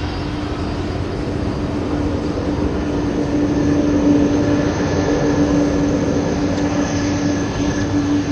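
Boeing 737-900's twin CFM56-7B turbofan engines at takeoff thrust during the runway roll: a steady jet rumble with a steady hum through it, growing louder over the first few seconds and then holding.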